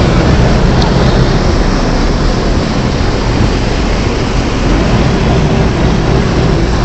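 A boat's engine running steadily under a loud, even rush of wind and water noise.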